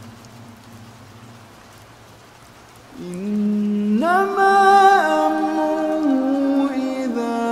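Steady rain for about three seconds, then a voice begins a slow, melodic Quran recitation in long held notes, rising once and then stepping down in pitch.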